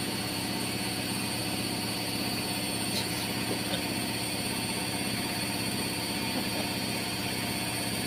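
Front-loading washing machine running, a steady mechanical hum with a regular pulse from the turning drum.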